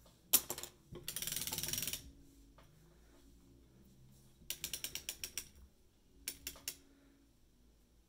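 Hand-cranked circular sock machine knitting: a sharp click, then about a second of rapid clicking as the needles run through the cams, followed by two shorter runs of fast ratcheting clicks later on.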